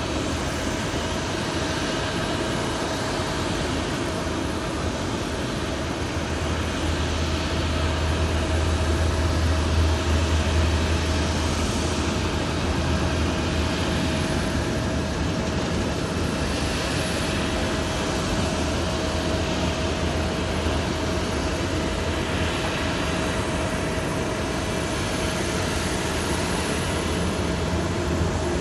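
Jet airliner noise at an airport runway: a steady rushing rumble that swells for a few seconds about a third of the way in, with a thin steady whine running underneath.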